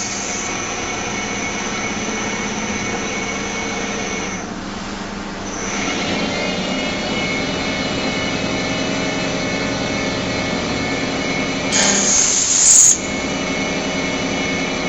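CK30 CNC lathe running while it machines brass parts: a steady whine made of several fixed tones. The whine drops away for about a second around four seconds in, then comes back, and a brief loud hiss comes near the end.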